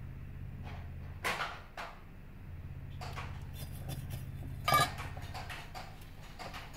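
Handling sounds on a workbench: a few knocks and small clicks as tools and parts are moved around, the loudest a ringing clink a little under five seconds in, over a steady low hum.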